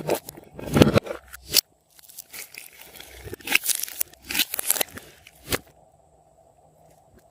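Crinkling, tearing and crunching in irregular bursts, like a plastic candy wrapper being handled and torn open; it dies down for the last second and a half.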